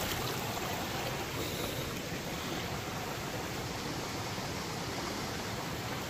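River flowing: a steady rush of water.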